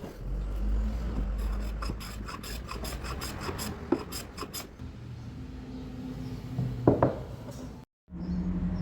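Wood being rasped and scraped by hand in a run of quick strokes, with a sharp knock about seven seconds in.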